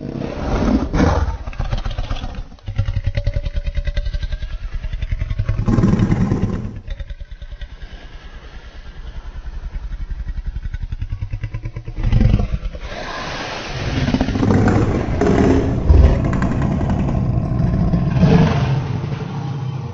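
Indominus Rex creature growls: a long run of deep, rattling growls that starts abruptly, with louder swells about 6, 12 and 16 seconds in.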